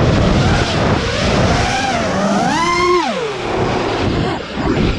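FPV quadcopter's brushless motors whining, the pitch climbing and falling with the throttle, with a sharp rise and drop about three seconds in. A dense rushing noise runs underneath.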